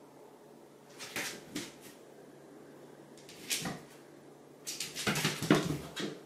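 A cat's paws thumping and skittering on a hard floor as it pounces after a light: a few quick knocks about a second in, one more in the middle, and a longer, louder flurry near the end.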